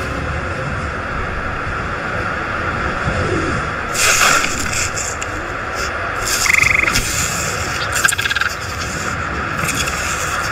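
A feathered dinosaur's raspy, croaking calls over a steady hiss of ambience. One short call comes about four seconds in, and several more follow from about six seconds on.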